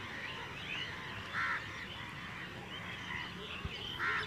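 Background animal calls: a chorus of many short chirps, with two louder calls about a second and a half in and near the end.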